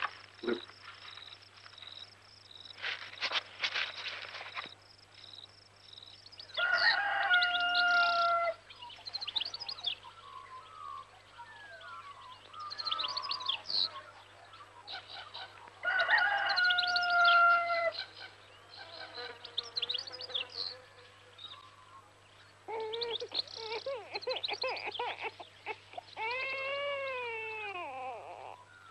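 A rooster crows twice, about ten seconds apart, with smaller birds chirping between the crows. Near the end a newborn baby cries.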